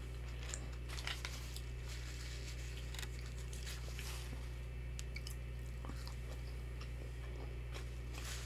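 Close-miked chewing with soft, scattered crunches, a person eating fried onion rings, over a steady low hum.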